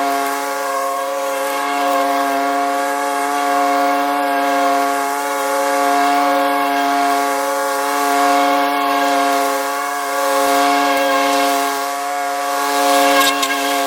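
Small gasoline engine of a handheld lawn tool running at high, steady throttle: a constant, high-pitched engine whine. A short surge of louder hiss comes near the end.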